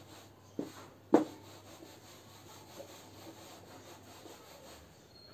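A duster wiping marker off a whiteboard: soft rubbing strokes. Two sharp knocks come about half a second and just over a second in, the second the louder.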